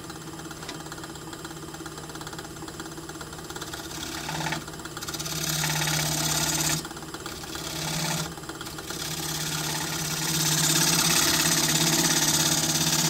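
Wood lathe motor running with a cherry burl blank spinning. From about four seconds in, a gouge cuts into the spinning wood with a hiss, first in two short passes, then steadily and louder through the last few seconds.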